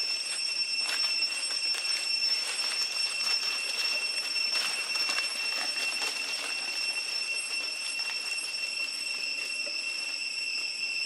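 Steady, high-pitched drone of forest insects, one unbroken tone with its overtones, with scattered faint crackles of dry leaf litter.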